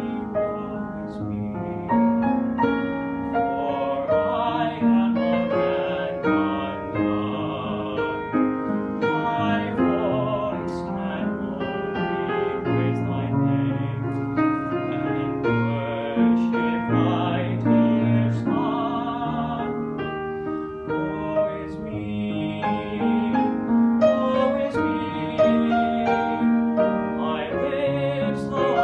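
A young male voice singing a worship song solo over piano accompaniment, with vibrato on the held notes.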